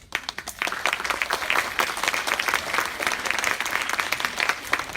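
Theatre audience applauding, dense clapping that breaks out at once and carries on steadily.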